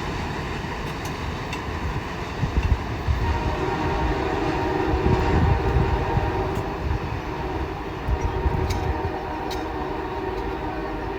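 CSX freight train rolling past: a steady rumble of wheels on rail with faint steady ringing tones and a few sharp clicks.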